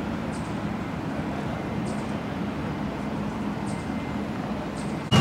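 Steady distant city and road-traffic hum heard from high above the town, with faint high ticks recurring roughly every one and a half seconds.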